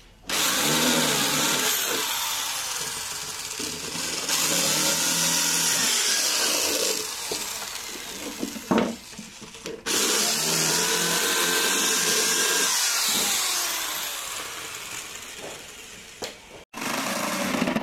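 Corded electric drill boring into a plywood panel, the motor's pitch rising and falling as it works under load. It runs in two long stretches, cutting off sharply about 10 seconds in and again near the end.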